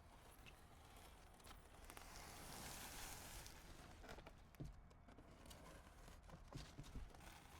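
Faint scraping hiss of a box cutter blade drawn through the foil facing of a snapped foam insulation board, lasting about a second and a half, followed by a few light knocks as the board is handled.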